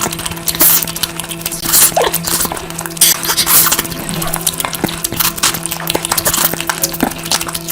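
Close-miked mukbang eating sounds of curry being chewed: dense, irregular wet smacks and clicks over a steady low hum.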